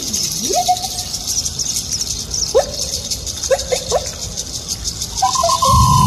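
Live band percussion: sliding, squeaky pitched calls over a fast, steady rattle. Early on one call swoops down and back up, and a few short upward chirps follow. About five seconds in, a long steady held tone comes in.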